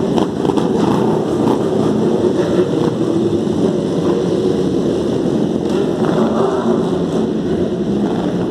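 Many sport motorcycle engines running together at low revs as a group of superbikes rolls off one after another: a steady, dense mechanical din.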